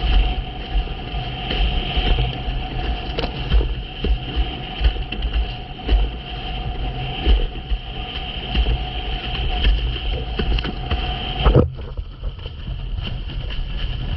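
Wind buffeting the microphone and water rushing past a windsurf board planing over choppy sea, with uneven gusty rumbles and a steady high whine underneath. About three-quarters of the way in, the whine stops abruptly and the wash and wind go on.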